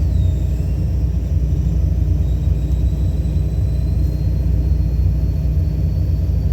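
John Deere excavator's diesel engine running with a steady low rumble, with a faint high whine that climbs slightly near the end.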